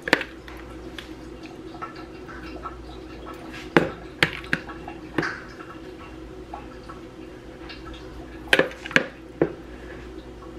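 Metal spoon clinking and scraping against a ceramic serving bowl as shrimp are scooped out, with sharp clinks at the start, a cluster about four seconds in and another about nine seconds in, over a steady low hum.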